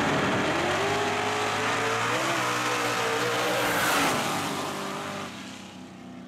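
Two small-tire drag racers, a twin-turbocharged Chevrolet S10 pickup and the Mamalon car, running at full throttle off the line. Their engines rise in pitch through the first couple of seconds, are loudest as they pass about four seconds in, then fade as they race away down the track.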